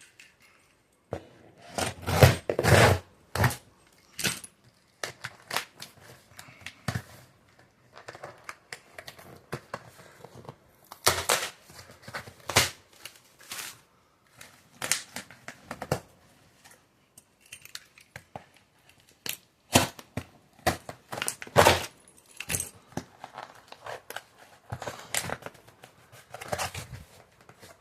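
Delivery packaging being torn open and handled: irregular ripping and crinkling with short knocks, loudest a couple of seconds in.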